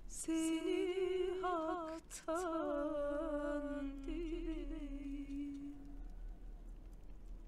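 A voice humming a wordless melody with a wavering vibrato, in two phrases split by a brief pause about two seconds in; the second phrase steps lower and fades out about six seconds in.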